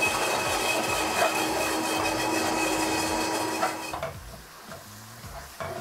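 Blendtec blender running steadily, blending parsley, salt and oil into a herb oil. It cuts off about four seconds in, followed by a few light knocks.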